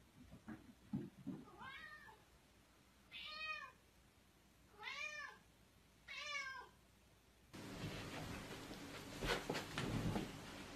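A cat meowing four times, a call about every second and a half, each one rising then falling in pitch. Then a steady hiss with a few knocks and rustles.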